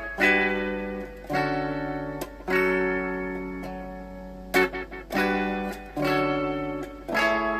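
Guitar playing a slow series of chords, a new chord struck every second or two and left to ring out and fade, over a steady low hum.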